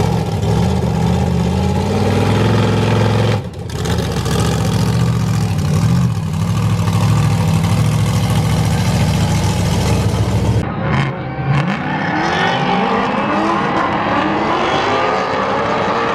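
A drift car's engine running hard at high revs, with a short lift off the throttle about three and a half seconds in. Around ten and a half seconds it drops off, then revs up and down repeatedly.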